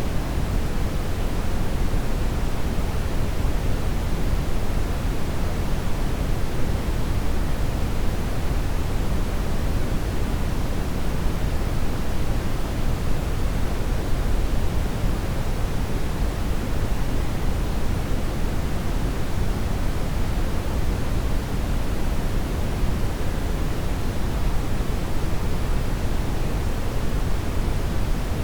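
Steady brown noise: an even, unbroken rush weighted to the low end, with no change in level.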